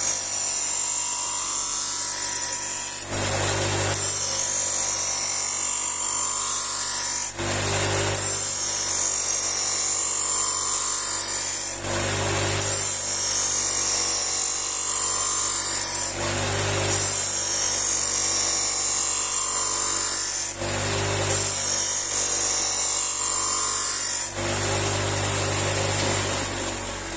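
Bench grinder with a waxed grit paper wheel running steadily while a knife edge is drawn across it again and again. There are about seven passes, each a high grinding hiss of roughly three and a half seconds with a brief break between them.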